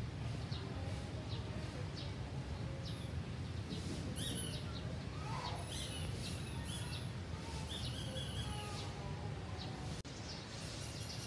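Small birds chirping: short, high chirps scattered throughout, over a steady low rumble of background noise.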